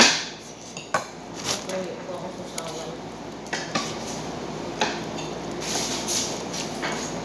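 Dishes and cutlery clinking against plates during a meal: a loud sharp clink at the start and a few more spread through, over the soft sounds of eating.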